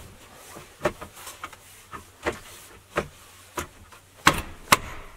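Hands pressing and knocking on a plastic car armrest console housing to seat its clips: a string of about eight sharp knocks and clicks, the two loudest coming close together near the end.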